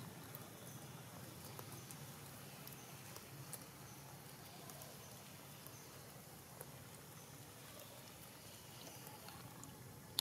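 Long-tailed macaques foraging in grass and dry leaves: faint rustling with a few soft, scattered clicks over a quiet outdoor background.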